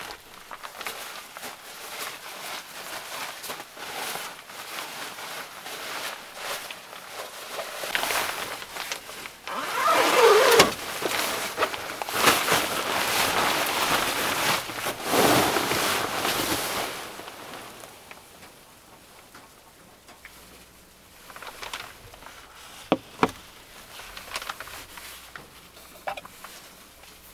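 Sleeping bag and its white cover rustling as a person shifts and settles into it. The rustling is loudest in the middle and then dies down, and two sharp clicks come near the end.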